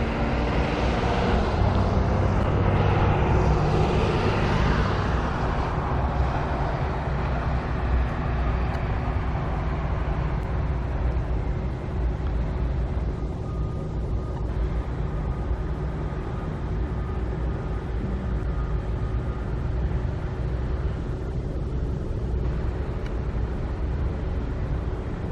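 Road traffic: a vehicle passes close by, swelling and then fading over the first five seconds or so, over a steady low rumble of more distant traffic.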